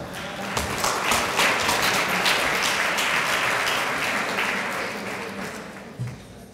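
Audience applauding, building quickly in the first second and fading away over the last couple of seconds.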